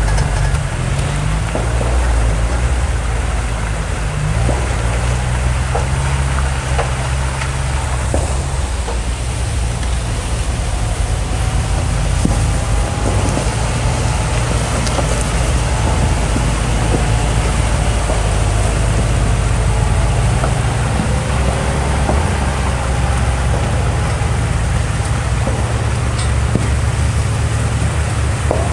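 Jeep Wrangler engine running steadily, a continuous low rumble that holds at much the same level throughout.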